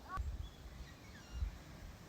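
A few short, faint bird chirps, with two low muffled thuds a little over a second apart.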